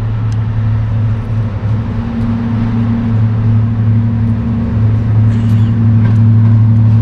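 Class 55 Deltic locomotive 55009 Alycidon's twin Napier Deltic two-stroke diesel engines running with a steady low drone, growing gradually louder as the locomotive approaches.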